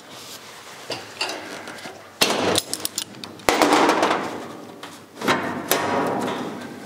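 A sheet-steel body panel being worked into place by hand, giving sharp metallic knocks and clatter. There is a cluster of knocks around two seconds in, a louder drawn-out rattle at about three and a half seconds, and two more knocks near the end.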